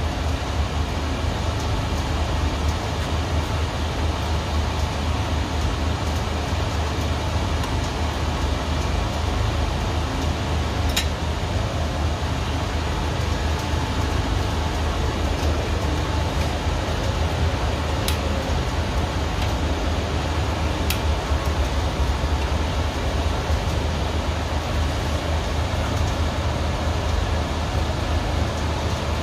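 Sirloin steak sizzling in a hot pan: a steady hiss with a low hum underneath and a few sharp pops.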